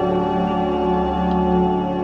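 Background music of sustained, droning tones.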